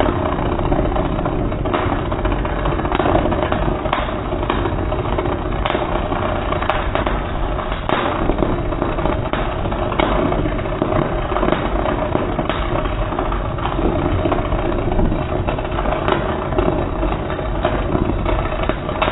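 Electric welding arc crackling and sputtering steadily over a constant hum, played back slowed down with the slow-motion footage.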